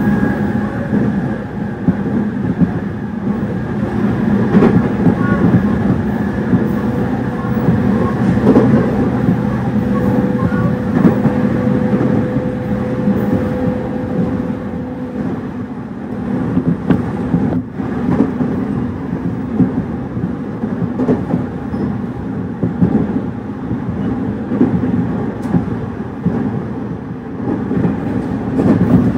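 JR 209 series electric train running at a steady speed, heard from inside a motor car: the traction motor hum sits over rumbling rail noise and wheel clatter.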